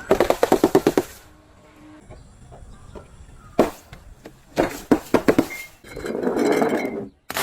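Something crunchy being crushed: a quick run of cracks and crackles, a single sharp crack, another short run of cracks, then a longer grinding crunch near the end.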